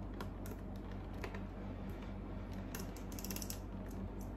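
Small cardboard blind box being opened by hand: light clicks, scrapes and rustles of the cardboard flaps and packaging, with a quick run of clicks about three seconds in. A steady low hum runs underneath.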